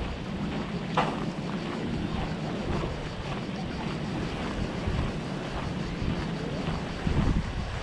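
Wind buffeting the microphone of a moving camera, a steady gusty rumble, with a few short clicks or crunches, the sharpest about a second in.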